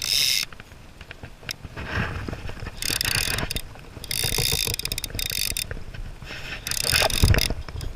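Fly reel's ratchet buzzing in several bursts of about a second as a hooked salmon is played, with a low thump about seven seconds in.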